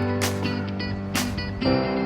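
Background music with a steady beat, led by a plucked guitar.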